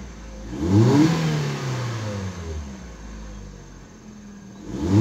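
Kia Rio's engine, running again on its repaired ECU after a crank-no-start fault, revved twice. The pitch climbs sharply about half a second in and falls back to idle over a couple of seconds, then climbs again near the end.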